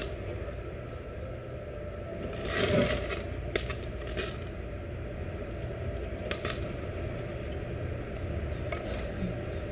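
Steady low hum of a tabletop yakiniku grill and its ventilation, with a brief hissing rush a few seconds in. A few light clinks of tableware or utensils follow.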